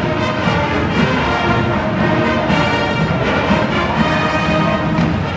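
Marching band playing a tune at full volume: brass (trumpets and sousaphones) over drums, continuous throughout.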